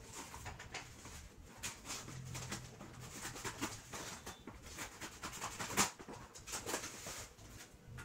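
Scissors cutting and snipping through the packing tape on a cardboard shipping box, a run of short clicks, scrapes and rustles, with the sharpest snap about six seconds in.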